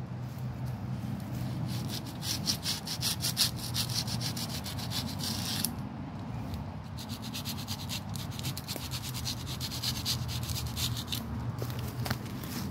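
Rapid scraping strokes against the bark of a pine trunk, scraping loose pine sap. They come in two runs with a short pause a little past the middle.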